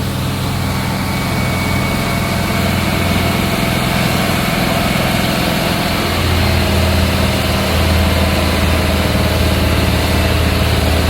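Freshly overhauled Chrysler Crown M47-S straight-six flathead marine engine running steadily, heard on board the boat. It runs smoothly and grows a little louder about six seconds in.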